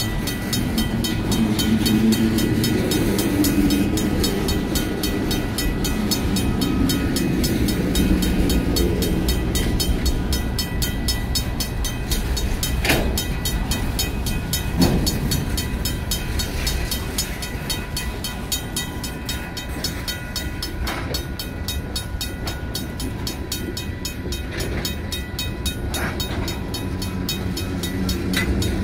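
Freight train cars rolling past a grade crossing: a low rumble of wheels on rail, heaviest in the first ten seconds, with a few sharp clanks further on. The crossing's RACO mechanical bell rings rapidly and steadily over it.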